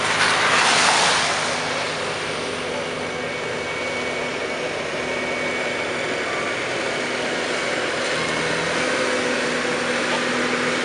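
Diesel engine of a CSX maintenance-of-way track machine running steadily as the machine travels along the rails. A short, loud hissing rush comes in the first second or so.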